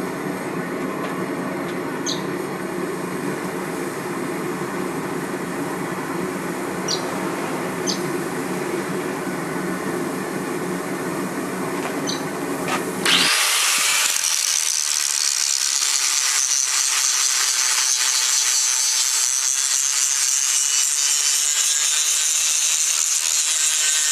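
Workshop power tool working steel: a steady low machine noise with a few faint ticks, then an abrupt change about thirteen seconds in to a louder, steady high-pitched hiss.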